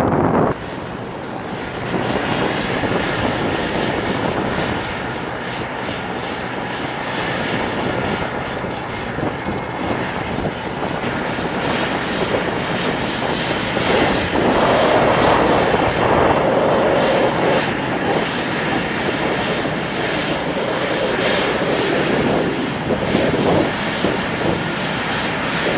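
MH-139A Grey Wolf helicopter running with its main rotor turning, a steady turbine-and-rotor noise from its twin turboshaft engines. It grows louder about halfway through.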